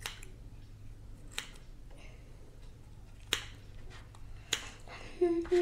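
Dissection scissors snipping into a perch: four sharp snips, about one every second or so.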